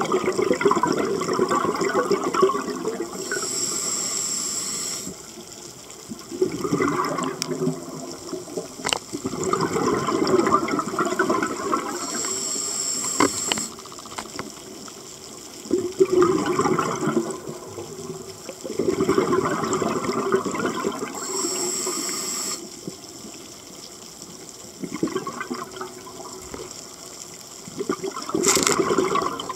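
Scuba regulator breathing underwater: a hissing inhale three times, about nine seconds apart, with bursts of exhaled bubbles in between.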